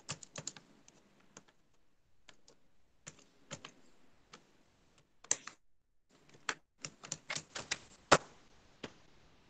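Typing on a computer keyboard: a quick run of key presses at the start, a few scattered presses, then faster runs of keystrokes, with one sharper, louder click about eight seconds in.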